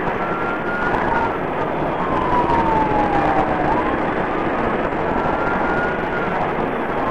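Police siren wailing in slow cycles, each a long falling tone followed by a quick rise, over loud steady road and engine noise from a patrol car driving at speed on a freeway.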